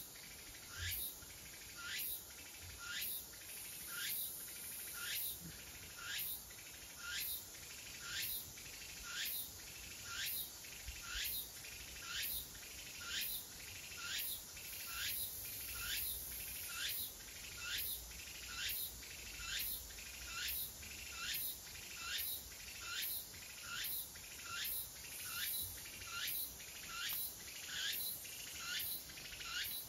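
An insect calling in a steady, unbroken series of short strokes, about three every two seconds, each a quick falling sweep.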